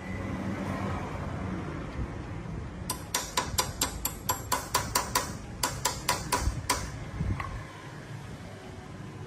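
Hammer blows on metal: a quick run of about twenty sharp, ringing strikes, about five a second, starting about three seconds in and stopping near seven seconds. Before the strikes there is a low, steady noise.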